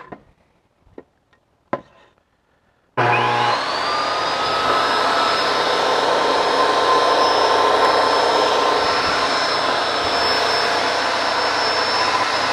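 Ryobi RTS08 8-1/4-inch compact table saw's 13-amp motor switching on about three seconds in. It spins up to a steady high whine within half a second and runs on while a wood board is fed through for a rip cut. Before it come a few light knocks of the board being handled.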